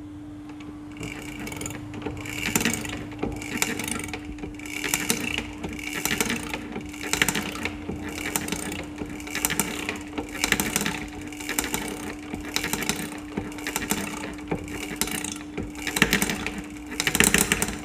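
The bottom end of a 100cc motorcycle engine being turned over by hand to prime and test its oil pump: repeated mechanical clicking strokes, about one every three-quarters of a second, over a steady hum.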